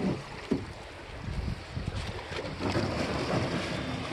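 Rushing river rapids with wind buffeting the microphone, and a single sharp knock about half a second in.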